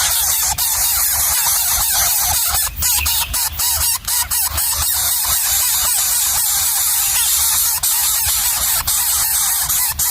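Nestling birds begging, a dense continuous chorus of rapid squeaky cheeps over a heavy hiss, with a few brief dropouts and clicks a few seconds in.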